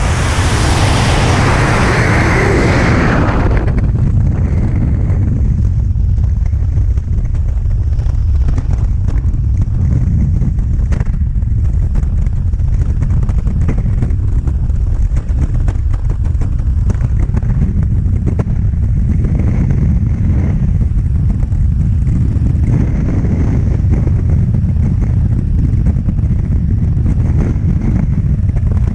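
Freefall wind buffeting a camera microphone: a steady, heavy low rumble. For the first three or four seconds, right after the exit from the aircraft, a brighter hissing rush from the plane's slipstream lies over it before falling away.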